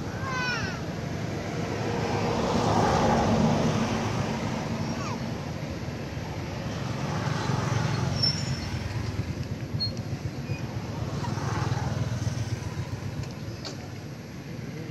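Road traffic going by: three vehicles pass, each swelling and fading, loudest about three, eight and twelve seconds in. A quick run of high rising chirps sounds right at the start.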